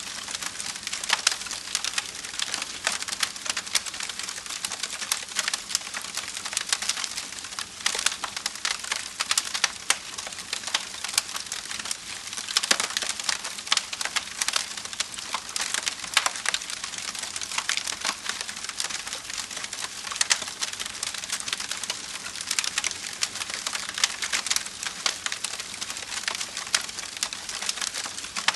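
Wood fire burning, crackling steadily with a dense run of irregular snaps and pops over a soft hiss.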